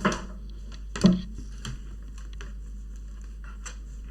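Two sharp clicks about a second apart, the second the louder, then a few faint ticks: a laptop and its charger plug being handled on a workbench.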